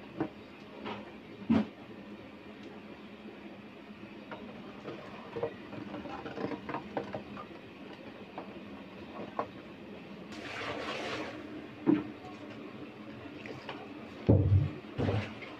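A plastic dipper scooping and stirring soy milk in a stone vat, with irregular knocks and clicks of the dipper against the vat wall and a second-long rush of splashing about ten seconds in. A few heavy thumps come near the end.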